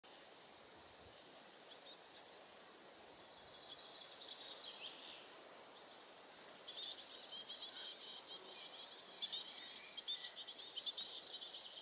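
Woodland songbirds singing: short phrases of high repeated notes every second or two, then from about seven seconds in several birds singing over one another in a denser chorus.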